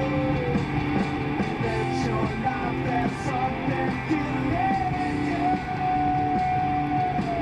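Rock music with a singing voice and guitars over a steady beat.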